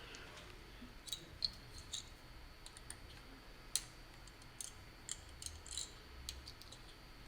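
Faint, scattered light clicks and taps of small parts and wire being handled during hand assembly of an electrical fitting.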